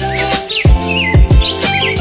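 Background music with a steady beat and held chords, with bird chirps over it.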